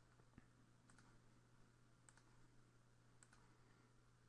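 Faint computer mouse clicks, about one a second, over a low steady hum in an otherwise near-silent room.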